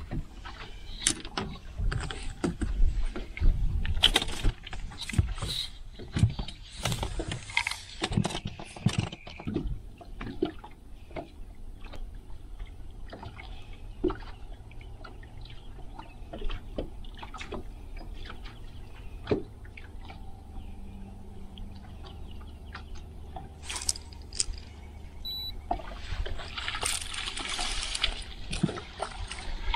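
Irregular knocks, clicks and rattles of gear being handled in a fishing boat, busiest in the first ten seconds and sparse after. A rush of splashing water runs for a few seconds near the end.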